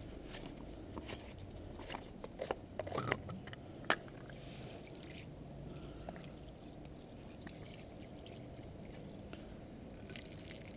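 Plastic coolant expansion tank being handled with rinse water inside: its plastic screw cap is unscrewed with a few sharp clicks and knocks about two to four seconds in, over faint water sloshing.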